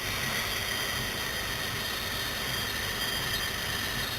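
A long, slow, even 'sssss' hiss of breath through the teeth: the lung sound of the Six Healing Sounds, made on a slow exhalation, with a faint steady whistle in it.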